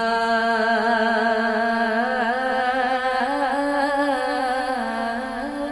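A woman singing a naat, drawing out one long held note with small melodic turns in pitch partway through.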